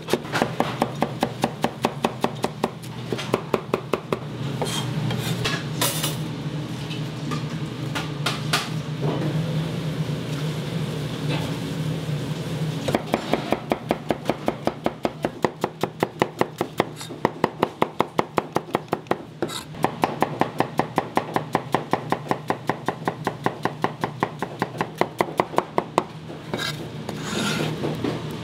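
Kitchen knife chopping rapidly on a cutting board, in quick even runs of about four to five strokes a second with looser pauses between runs, over a steady low hum.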